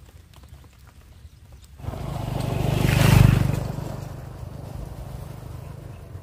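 Motorcycle riding past close by and away down a dirt track. Its engine hum starts suddenly about two seconds in, swells to its loudest about three seconds in, then fades as the bike moves off.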